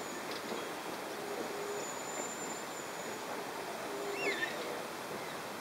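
Stainless-steel passenger carriages of a long-distance train rolling past, a steady rumble and rush of wheels on rail.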